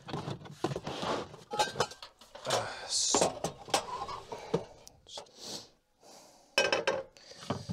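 Camp cooking gear being got out and handled: a scattered string of knocks, clicks and clatters with a few brief rustles.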